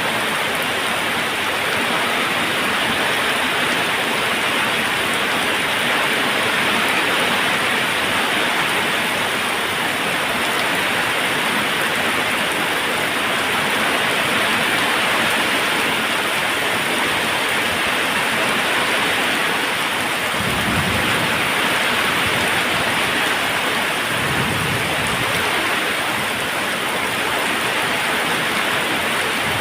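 Waterfall: a steady, even rush of falling water, with two brief low rumbles in the last third.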